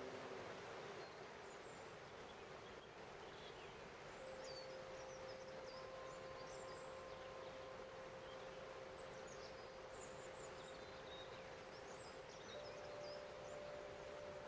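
Steady rush of water over a small stepped waterfall, with long held pure tones of a crystal harp: one rings in about four seconds in and a slightly higher one near the end. Small birds chirp faintly over it.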